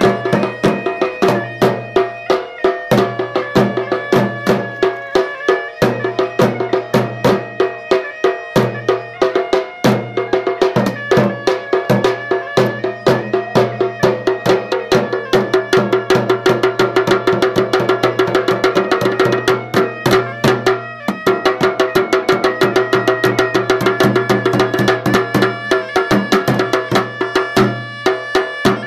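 Sri Lankan traditional ceremonial drumming: fast, steady drum strokes with a wind instrument sounding a held, droning melody over them. The drumming pauses briefly about two-thirds of the way through, then carries on.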